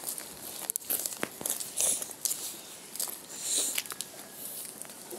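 Hurried footsteps crunching and scuffing on a gritty dirt lane, with irregular clicks and rustling close to the microphone.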